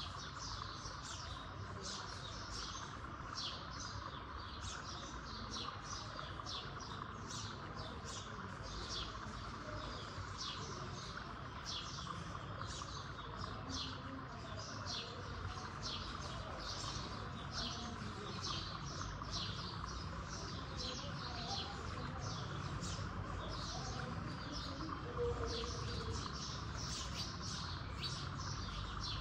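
Small birds chirping continuously, short high chirps two or three a second, over a steady background drone.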